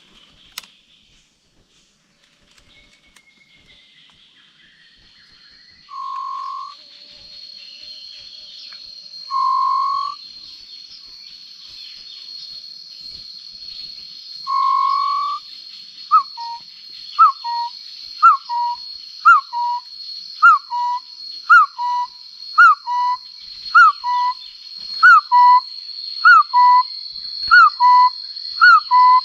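Whistled hill-partridge calls: three long single notes, then a fast regular series of paired notes, a rising-and-falling note followed by a short lower one, nearly two a second. A steady high drone runs underneath.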